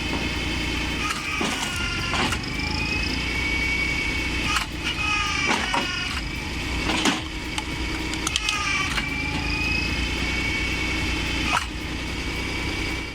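Engine-driven firewood machine running steadily. Its high whine sags in pitch and recovers three times as it takes load, with a few sharp wooden knocks.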